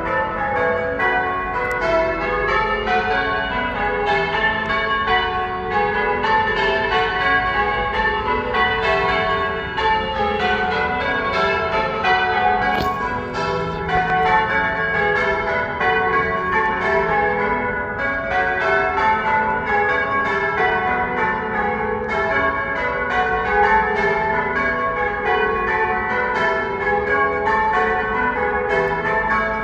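A ring of church bells being rung in changes: a steady, even stream of strikes on bells of several different pitches, each ringing on into the next.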